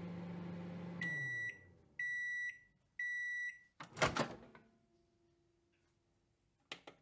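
Microwave oven running with a low hum that winds down about a second in. It then gives three beeps about a second apart to signal the end of cooking. About four seconds in comes the loudest sound, a clunk as the door latch pops open, followed by a faint steady tone and a couple of small clicks near the end.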